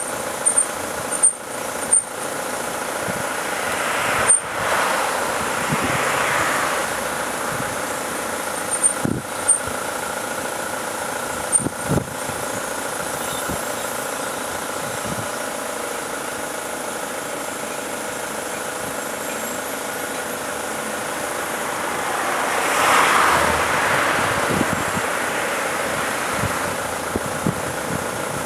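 Motor vehicle running slowly, a steady engine and road hum with a few sharp clicks. The noise swells louder about four seconds in and again past twenty seconds.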